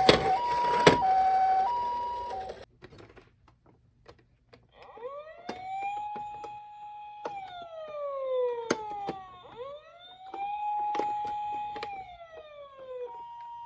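Toy ambulance's electronic two-tone hi-lo "pee-po" siren, which stops abruptly about two and a half seconds in. After a short pause, a toy police car's electronic wail siren rises, holds and falls twice. Sharp clicks sound throughout, and the hi-lo siren starts again near the end.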